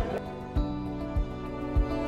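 Background music: sustained soft chords over a steady beat, about one beat every 0.6 seconds.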